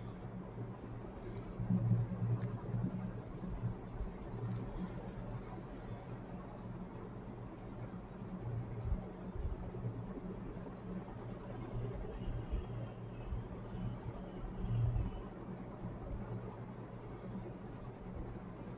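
Coloured pencil shading on paper: a soft, steady scratching that swells now and then, over a low background hum.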